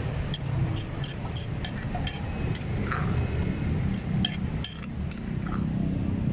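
Irregular light clinks and taps of dishes and utensils, a dozen or so scattered through, over a steady low rumble.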